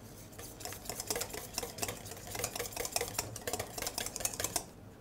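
Wire balloon whisk beating a soft fromage blanc and strawberry jam mixture in a stainless steel bowl: rapid scraping strokes of the wires against the metal, about five a second, that stop a little before the end.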